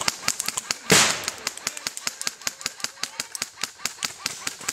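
Airsoft guns firing: a steady run of sharp shots, about six or seven a second, with one much louder crack about a second in.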